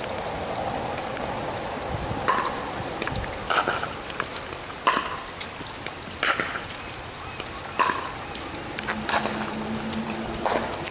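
Pickleball rally: about seven sharp pops of paddles striking the plastic ball, evenly spaced roughly a second and a half apart, over a steady hiss of falling rain.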